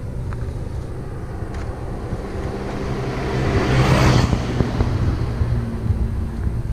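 A road vehicle passing by: its noise swells to a peak about four seconds in and then fades, over a steady low engine hum.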